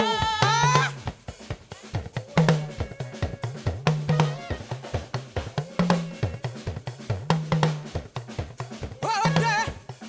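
Live gospel praise band playing: a drum kit with snare and kick hits over a repeating low bass line, between sung lines. Singing is heard briefly at the start and again near the end.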